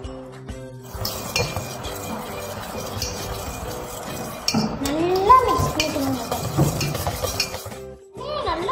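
Wire balloon whisk beating egg and powdered sugar in a stainless steel bowl: fast, continuous scraping and clinking of the wires against the metal, starting about a second in.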